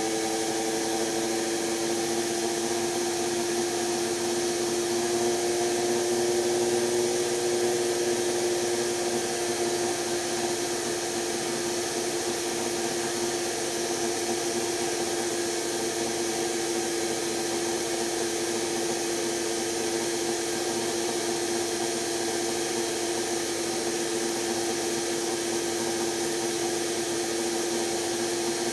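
Electra ELEC1647A3 washing machine's brushed motor running the drum with a steady whine, its pitch rising a little over the first few seconds and then holding. The motor's commutator is damaged and the motor is failing.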